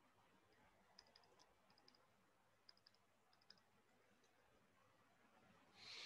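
Near silence with a few faint, quick clicks in small clusters over the first four seconds, from writing on a computer with a digital whiteboard. A faint hiss rises just before the end.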